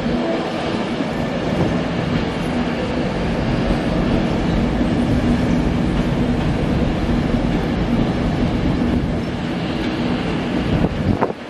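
Avanti West Coast Class 390 Pendolino electric train running past: a steady rumble of wheels on rail with a low hum under it. The sound drops abruptly near the end.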